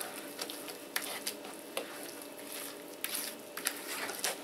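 Spatula stirring thick, wet zucchini fritter batter in a plastic bowl: soft squelching with scattered light clicks of the spatula against the bowl.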